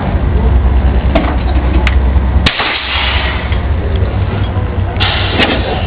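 Amtrak passenger cars being uncoupled and pulled apart: sharp metallic clicks, a loud bang about two and a half seconds in with a short burst of hiss, and two more clacks with hiss near the end. Under it runs the low steady rumble of an idling diesel locomotive.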